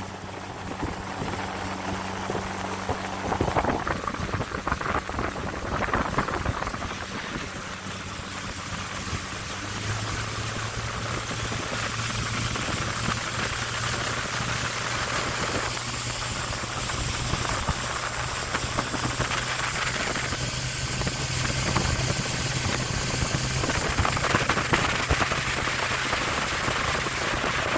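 Steady machine noise with a low hum; the hum changes pitch about ten seconds in.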